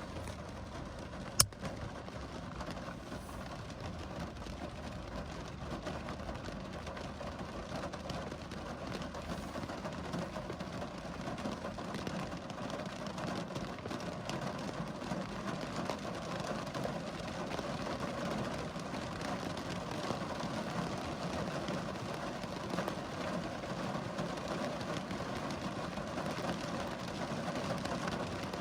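Steady rain falling, a dense even patter, with a single sharp click about a second and a half in.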